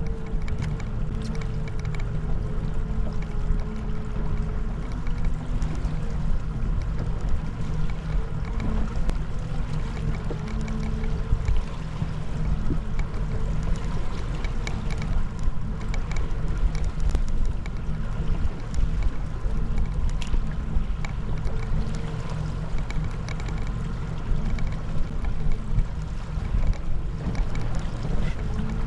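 Boat engine running steadily at trolling speed: a low, even drone with a faint higher whine that wavers slightly in pitch, over wind and water noise.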